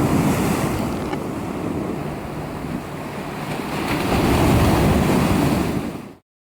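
Sea waves breaking on the shore, with wind buffeting the microphone; the surf swells twice, the second time about four seconds in, and cuts off suddenly near the end.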